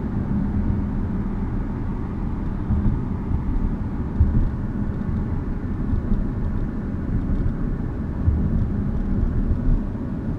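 Cabin noise inside a 2015 Audi SQ5 on the move: a steady low road-and-tyre rumble, with faint, brief rattles scattered through it that the owner traces to the driver's side door, a rattle that more than ten dealer repair attempts have not cured.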